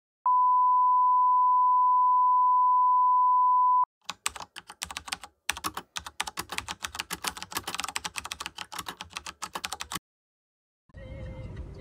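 A single steady high beep tone held for about three and a half seconds, then rapid computer-keyboard typing clicks for about six seconds that stop abruptly.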